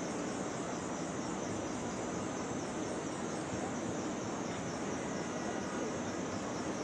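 Steady city street ambience: traffic and the hubbub of a crowd blend into an even noise, with a high wavering hiss over it.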